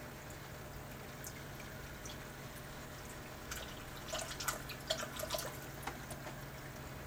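Aquarium filter running: a steady low hum under trickling water, with a flurry of drips and small splashes from about three and a half to six seconds in.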